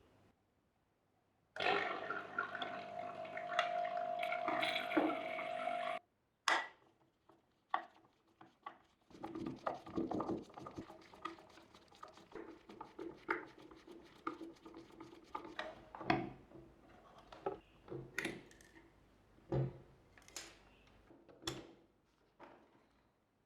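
Hard plastic parts and tools clicking, knocking and scraping in irregular handling sounds while a Nespresso capsule machine is taken apart. Near the start there is about four seconds of a steady noisy whir with a held tone, which cuts in and out abruptly.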